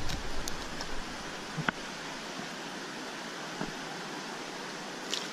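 Steady hiss of flowing river water, with a couple of light clicks in the first two seconds.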